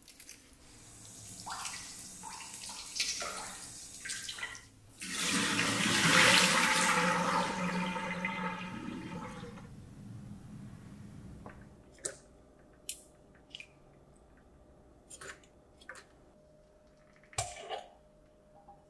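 Water running from a kitchen tap into a sink, rinsing produce in a metal colander: it comes on strongly about five seconds in and tails off over the next several seconds. Afterwards come a few light clicks and knocks, with a glass jar's lid being unscrewed near the end.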